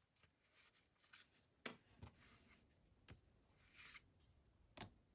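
Faint handling of trading cards and their cardboard and plastic packaging: a few soft clicks and taps, the loudest near the end, with a brief rustle just before it.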